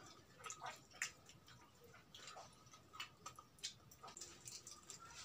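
Quiet eating sounds: scattered small clicks and crackles as crispy fried chicken is pulled apart by hand and chewed.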